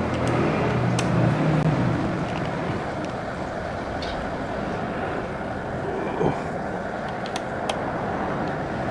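Steady background noise of road traffic, with a few sharp single clicks scattered through it.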